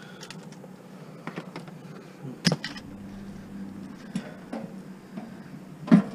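Scattered light knocks and clicks from scrap items being shifted and fitted into a truck bed, with a louder knock about two and a half seconds in and another near the end, over a faint steady low hum.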